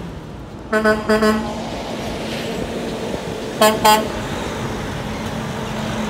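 A semi truck's horn gives two short toots about a second in, then two more about two and a half seconds later. Under them runs the steady sound of the truck driving past.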